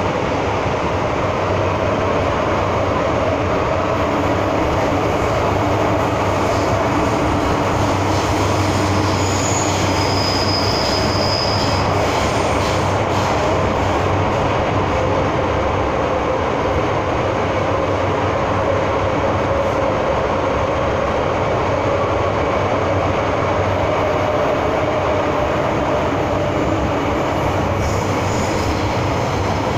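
MTR M-Train electric multiple unit running through a tunnel, heard from inside the carriage: a steady rumble of wheels and running gear with a low hum. A brief high-pitched wheel squeal comes about ten seconds in.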